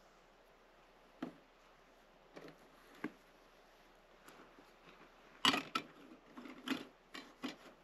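A few light, widely spaced knocks and clicks, then a quicker cluster of louder knocks and clatters from about five and a half seconds in, over a faint steady background.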